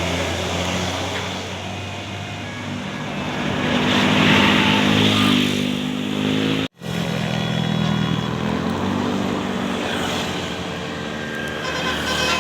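Road traffic: vehicle engines running past steadily, swelling as one louder vehicle goes by about four to five seconds in. The sound drops out for an instant just past halfway.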